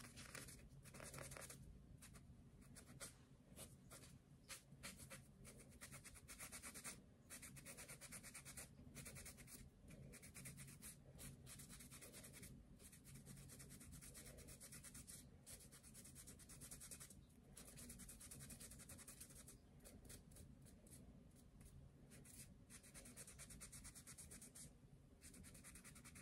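Faint, irregular rubbing and scratching of a cotton ball scrubbed against a glitter-polished fingernail as the polish is wiped off.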